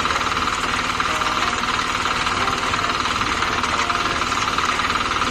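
Small engine of concrete-pouring equipment running steadily, with a fast, even knocking beat.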